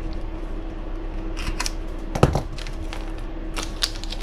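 Small parts and tools being handled on a workbench: a few light clicks and taps, with one louder knock about two seconds in, over a steady low hum.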